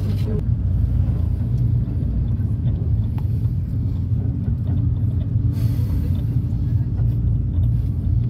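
Steady low drone of a minibus's engine and tyres heard from inside the cabin while it drives along.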